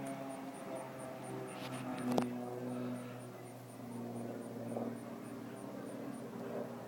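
Distant biplane's propeller engine droning overhead, its pitch drifting slowly as it flies. A sharp click sounds about two seconds in.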